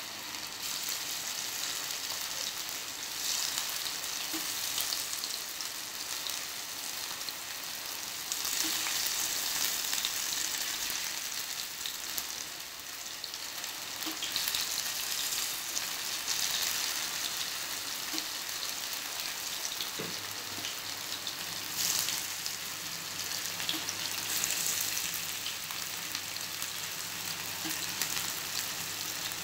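Masala-coated chicken pieces sizzling as they fry in hot oil in a frying pan. The sizzle swells several times as more pieces go into the oil.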